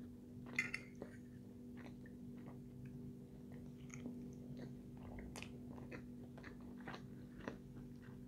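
A person chewing and biting a forkful of food close to the microphone, with many small wet mouth clicks and a sharper click or two about half a second in. A faint steady hum runs underneath.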